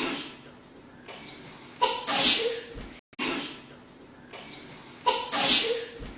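A woman's wet double sneeze, looped: two hissy sneezes about a second apart, the first louder and voiced, the pair repeating about every three seconds.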